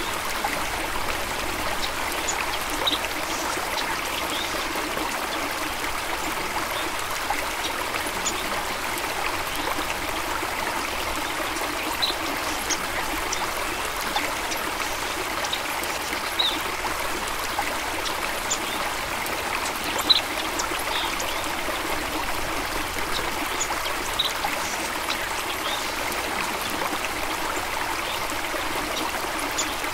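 A stream of water running steadily, a continuous rushing trickle with scattered brief bright plinks of droplets and small splashes.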